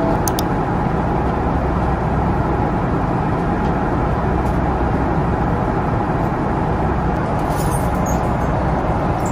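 Airliner cabin noise in flight: a steady, even drone of engine and airflow noise, heaviest in the low end.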